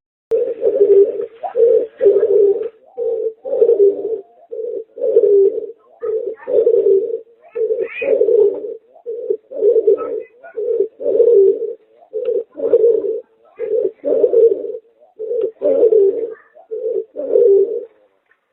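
Pigeon–turtle dove hybrid (merpater) cooing over and over in a steady run of low coos, about one a second.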